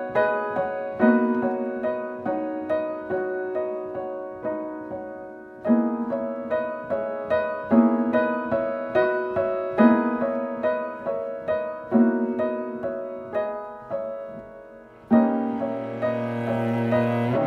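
Background music: piano playing a gentle, repeating arpeggiated pattern. Near the end, a low sustained bowed-string note comes in under it.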